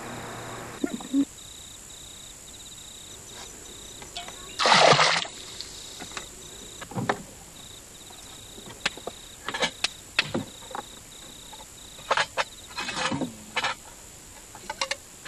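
Scattered clicks and knocks of cooking pots and fire materials being handled, with one loud rushing noise about five seconds in. A steady high insect trill that comes and goes runs underneath.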